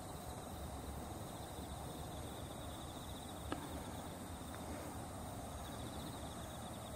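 Faint outdoor ambience with insects trilling steadily in a high, rapidly pulsing note, and a single small click about three and a half seconds in.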